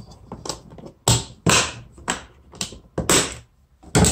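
Gear being handled and moved around in a plastic kayak's cockpit: a string of short knocks and scraping rustles as a battery box is lifted and set down, the longest near the end.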